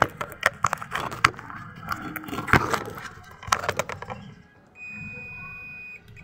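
Sinwha DT9205A digital multimeter's continuity buzzer giving one steady high beep for about a second near the end, as its probes bridge the horn driver's voice-coil terminals: the coil is intact. Before it come scattered clicks and taps of the probes being handled against the driver.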